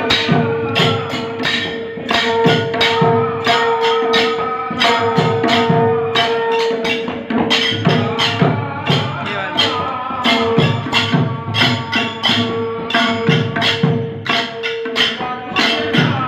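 Devotional bhajan music: a long held drone note with other sustained notes above it, over a steady beat of drum and small hand cymbal strikes, about two to three a second.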